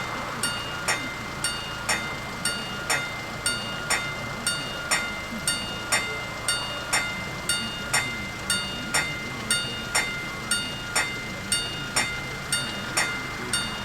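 Level crossing warning bells ringing steadily, about two strikes a second, each strike ringing on briefly.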